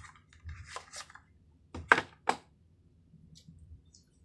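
Hands handling the small wireless microphone and its packing: light rustling, then two sharp clicks about a third of a second apart, near two seconds in.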